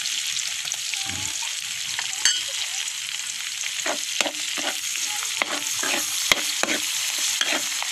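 Onion, garlic and rendered pork fat sizzling in a wok as shrimp paste (alamang) goes in. From about halfway in, a spatula stirs and scrapes against the wok, roughly three strokes a second.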